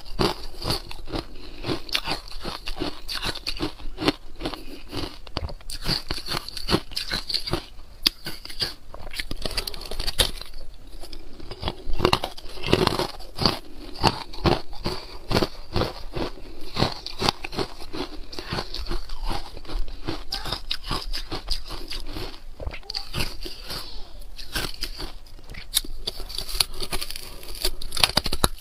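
Pink carbonated ice cubes being bitten and chewed: a rapid, continuous run of sharp crunches and cracks, with some louder bites among them.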